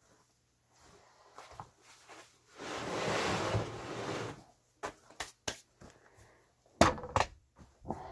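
Work glove scrubbed over a rough jujube-wood slab to brush off sanding dust, a dry rustling for about two seconds, followed by a scatter of sharp knocks and thumps from handling.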